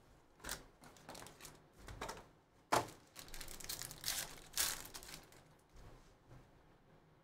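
A cardboard trading-card box is handled, then a foil card pack is torn open and crinkled, in a series of short rustles and rips. The loudest, sharpest sound comes almost three seconds in.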